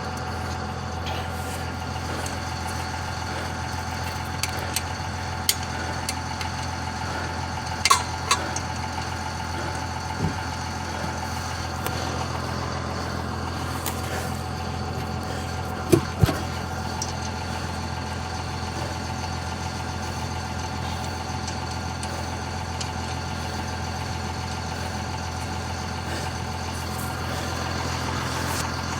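Vehicle engine idling steadily under a handful of short, sharp knocks, the loudest a pair about sixteen seconds in.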